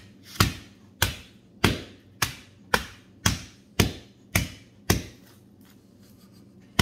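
Hammer pounding lump charcoal wrapped in a cloth shirt on a concrete floor, crushing it into smaller pieces: about nine sharp, even blows, nearly two a second, that stop about five seconds in.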